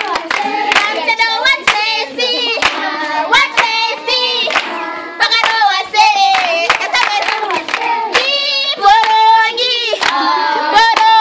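A group of children singing a song together while clapping their hands in a steady rhythm.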